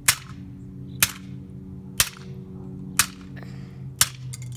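Claw hammer striking a small toy model car on a concrete curb: five sharp blows, evenly spaced about a second apart.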